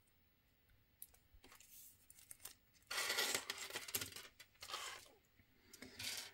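Handling noise from hands working with small jewellery items: a few light clicks, then a burst of crinkling and rustling about three seconds in, with shorter rustles near the end.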